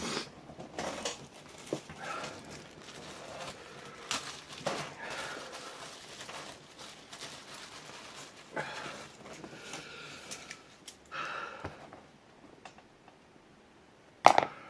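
Small metal lock picks and tools being handled: scattered light clicks and rustling, a few short breaths or sniffs, and one sharp knock near the end.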